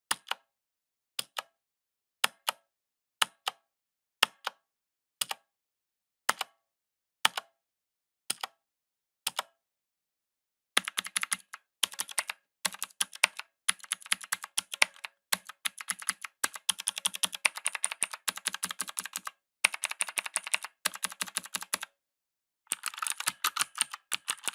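Mechanical keyboard keys, most likely the arrow keys, pressed slowly at about one press a second, each press a click going down and another on release. About ten seconds in it changes to rapid tapping in bursts of several seconds with short pauses between them.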